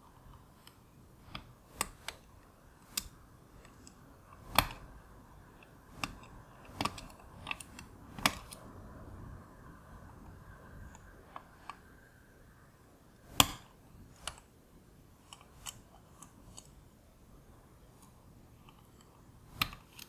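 Steel lock pick working inside a pagoda-style cam lock held under tension by a brass wire tension wrench: scattered small metallic clicks and a faint scraping as the pick pushes on the lock's brass rings. The clicks are irregular, and two of them about 4.5 and 13 seconds in are sharper than the rest.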